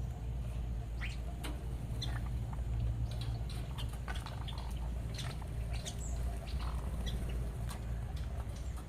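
Aviary songbirds giving short, scattered chirps and call notes over a steady low hum.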